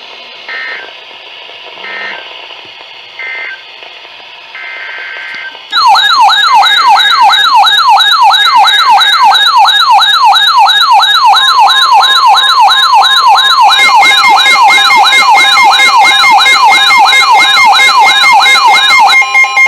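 NOAA Weather Radio alert: four short digital data bursts, then about six seconds in a loud siren-like warble of about three sweeps a second, joined partway through by a steady alert tone. It signals an incoming severe thunderstorm warning.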